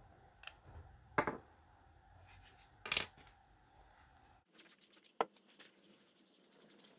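A small metal nut and washer clinking against the glass cover of a pressure gauge as they are taken off and put down on the bench: three sharp clicks spread over the first three seconds. Then a quick run of small clicks and rubbing as a cotton pad wipes the glass, with one sharper click about five seconds in.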